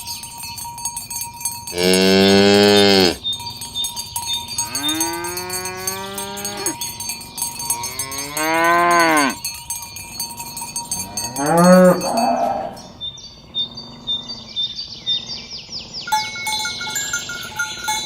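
Cows mooing: four moos. The first and loudest comes about two seconds in and holds an even pitch for over a second. The next two are longer calls that bend in pitch, and a short moo follows about twelve seconds in.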